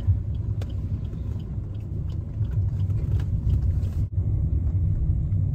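Steady low rumble of a car's engine and tyres, heard inside the cabin while driving, broken by a momentary dropout about four seconds in.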